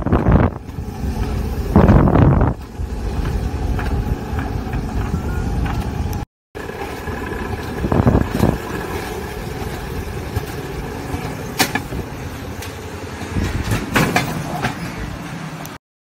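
Alpine coaster cart running down its track: a continuous rumble and rushing noise, swelling louder about two seconds in, again around eight seconds and near the end. The sound drops out briefly twice.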